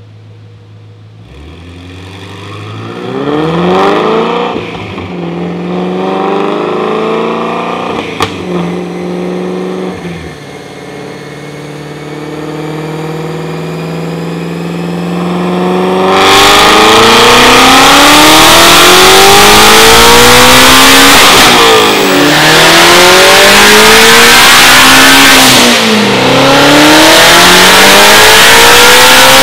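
Twin-turbocharged 5.2-litre flat-plane-crank V8 of a 2019 Shelby GT350 running on a chassis dyno. It starts quiet, with a few short rising revs and a single sharp crack about eight seconds in. From about sixteen seconds it is a loud wide-open-throttle pull, the engine pitch climbing, dipping and climbing again twice.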